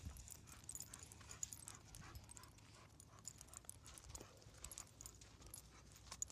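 Faint crunching footsteps and mastiff puppies' paws scuffing on a gravelly dirt trail, a run of irregular little ticks and scrapes.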